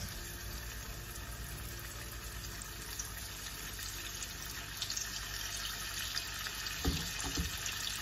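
Floured mackerel pieces frying in hot oil in a frying pan, a steady bubbling sizzle. A couple of low knocks come near the end.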